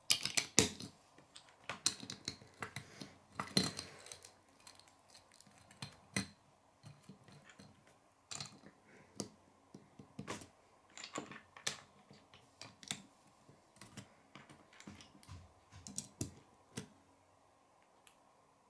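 Plastic Lego pieces clicking and tapping as they are handled and pressed onto a small brick-built car: irregular sharp clicks, thickest in the first few seconds and thinning out near the end.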